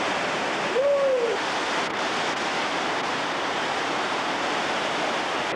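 Steady rushing noise, with one short hoot-like tone that rises and falls about a second in.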